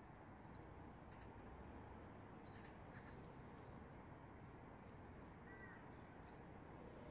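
Near silence: faint outdoor background hiss with a few brief, faint bird calls, one a short two-note call about two-thirds of the way in.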